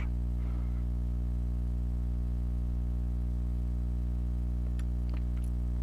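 A steady low hum with many even overtones, unchanging throughout, with a few faint light clicks about five seconds in.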